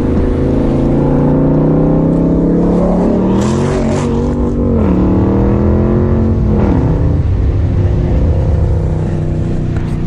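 2017 Dodge Charger Daytona's 5.7-litre Hemi V8 running under way, its note rising about three seconds in, holding, then falling back near five seconds, with another drop near seven seconds.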